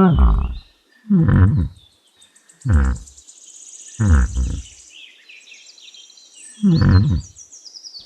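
Yak grunting: five short, deep calls spaced a second or more apart, each dropping in pitch.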